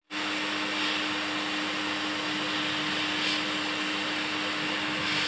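Electric pet hair dryer (blower) running steadily, an even rushing hiss of air over a low motor hum, drying a freshly bathed kitten's wet fur.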